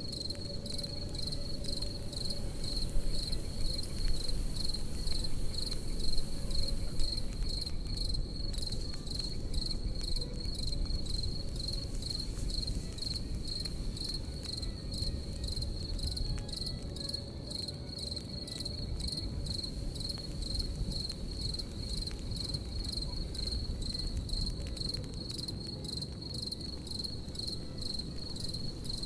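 Crickets chirping in a steady, rapid high-pitched pulse over a crackling campfire, with a low rumble of fire noise and a few louder pops in the first several seconds.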